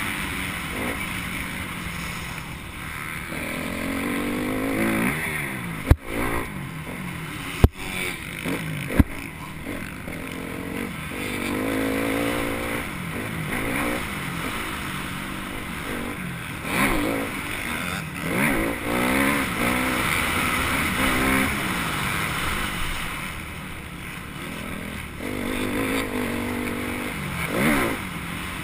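Dirt bike engine on a motocross track, heard from a camera mounted on the bike, revving up and dropping back again and again as the rider accelerates and shifts, with wind noise. Three sharp knocks come between about six and nine seconds in.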